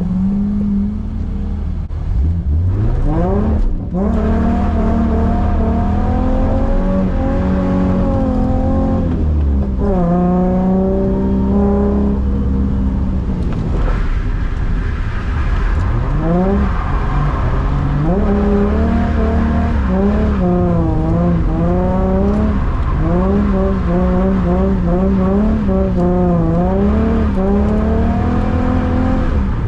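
Holden Commodore V6 engine being driven hard, its revs climbing steeply a few seconds in and then repeatedly dropping and rising again as the throttle is worked in a drift.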